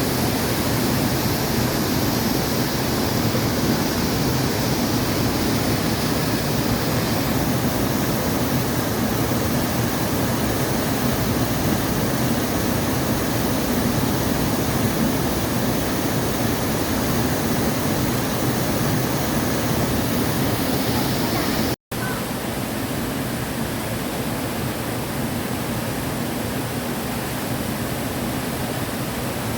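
Waterfall: a loud, steady rush of falling water. About 22 seconds in it cuts out for an instant and resumes slightly quieter.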